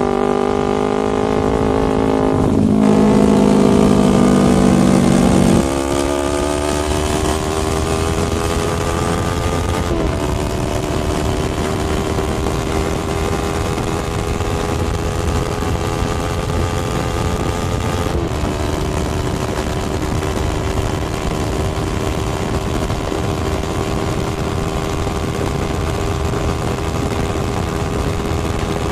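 Motorcycle engine pulling through the gears, its pitch climbing over several seconds with quick gear changes about ten and eighteen seconds in, then running steadily at cruising speed, over a constant rush of wind noise.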